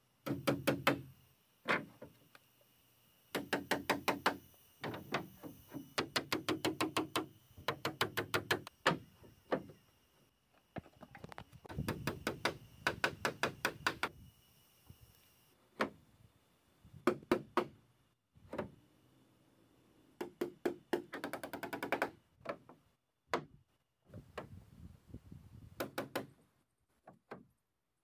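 Hammer driving nails into wooden roof boards, in quick runs of sharp strikes with short pauses between the runs.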